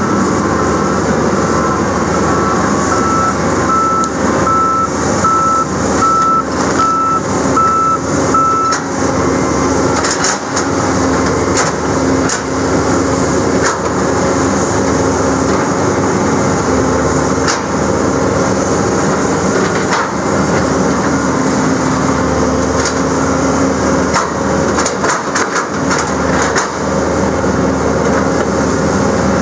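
John Deere 2154D tracked excavator running and crawling through a creek, its travel alarm beeping steadily for about the first nine seconds. Scattered sharp knocks and clanks sound over the engine's steady hum.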